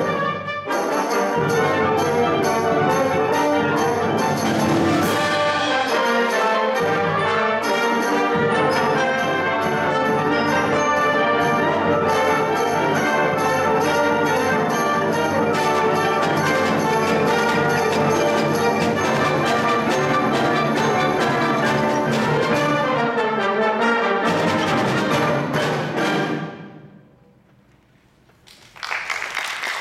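Concert band playing the closing bars of a piece, brass to the fore over woodwinds and percussion, ending on a final chord that dies away. After a second or two of quiet, applause starts near the end.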